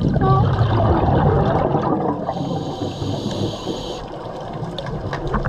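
Scuba regulator breathing underwater: a loud gurgle of exhaled bubbles for about two seconds, then a quieter stretch with the hiss of an inhalation.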